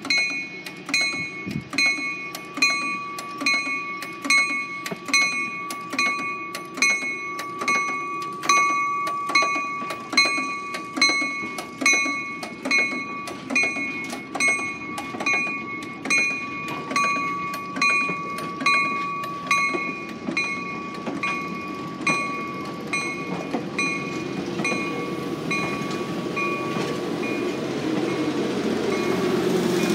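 Budd Rail Diesel Car's warning bell ringing steadily, about one and a half strokes a second, as the car moves off, over the low running of its diesel engines and the rumble of its wheels. The bell fades out about three-quarters of the way through while the engine and wheel noise grows louder as the car passes close.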